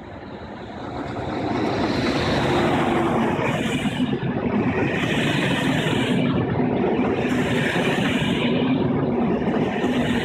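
A BB 26000 electric locomotive and its train of Corail coaches going past close by. The sound swells over the first two seconds as the locomotive draws level, then holds as a steady rumbling rush of wheels on the rails while the coaches roll by.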